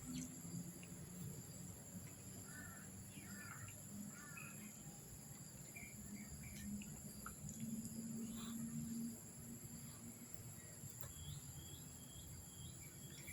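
Faint steady insect drone of crickets or cicadas in two high tones, with a few faint short chirps a few seconds in.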